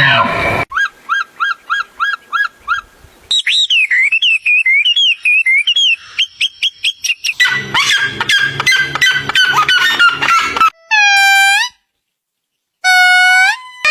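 Several different bird calls spliced one after another: a short chirp repeated about six times, then a warbling whistle, then a fast pulsing call, then two long calls with a second of silence between them.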